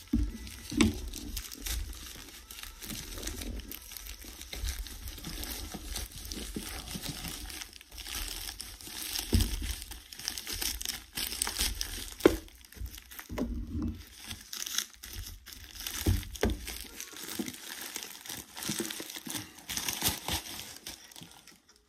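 Plastic Priority Mail shipping bag crinkling and rustling steadily as it is handled and worked open, with a few dull bumps.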